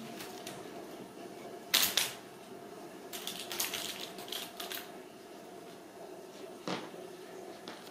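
Ragdoll kittens playing with a string toy on a rug: scattered light clicks and taps, two sharp knocks about two seconds in, a run of quick clicks a second later and one more knock near the end, over a steady low hum.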